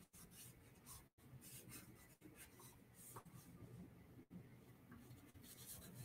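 Faint scratching of quick sketching strokes on paper.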